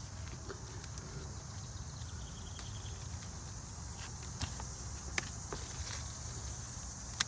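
Insects droning steadily in a high, even tone over a low rumble, with a few sharp clicks, one about four seconds in, one about five seconds in and one near the end.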